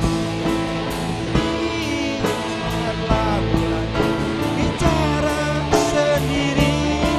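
A live band playing: a Roland E-09 electronic keyboard, a guitar and a drum kit, with a cymbal struck on a steady beat under a sliding melody line.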